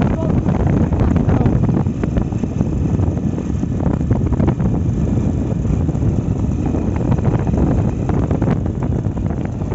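Wind buffeting the microphone: a loud, dense, gusting low rumble.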